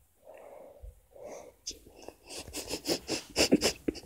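A person's breathy, wheezing vocal sounds: a few soft puffs of breath, then a quick run of short, sharp breathy bursts from about halfway through.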